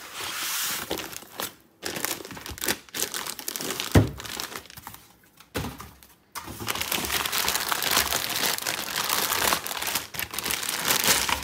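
Clear plastic bag crinkling and rustling as it is worked off a bench power supply. Before that, foam packing inserts are pulled away with a rubbing rustle, and there is a single thump about four seconds in.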